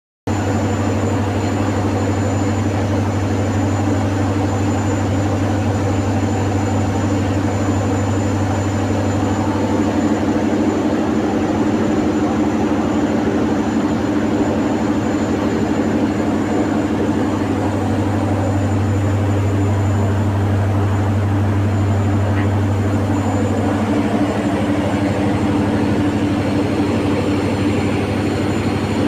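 A large engine running steadily at a constant speed: an even low hum with a thin high whine above it.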